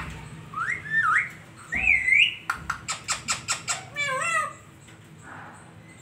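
Male rose-ringed (Indian ringneck) parakeet whistling and chirping: two gliding, up-and-down whistles, then a quick run of about six sharp chirps, then a short warbled call, going quiet about four and a half seconds in.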